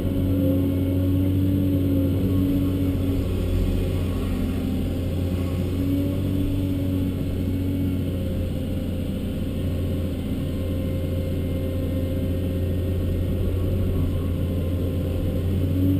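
Cat 324D long-reach excavator's diesel engine running steadily under load, heard from inside the cab, with a whine that comes and goes every few seconds as the hydraulics work the boom and swing.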